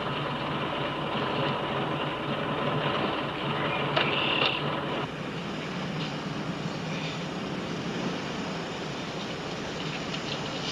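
Steady rumbling noise of a car engine running. About four seconds in there is a brief higher-pitched sound, and about five seconds in the rumble cuts off abruptly, leaving a steady, slightly quieter hiss.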